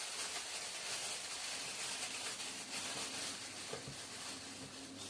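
Steady hiss with a few faint clicks and knocks of small parts being handled.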